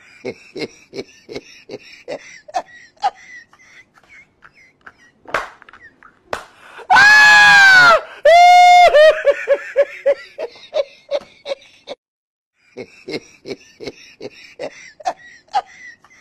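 Human laughter: short bursts about two a second, then a very loud, high-pitched shrieking laugh about seven seconds in. It trails off into quicker, fading bursts, and the short bursts return near the end.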